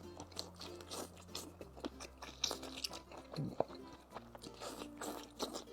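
Close-up mouth sounds of a person biting and chewing crayfish dipped in sauce: scattered soft crunches, clicks and smacks, with quiet background music underneath.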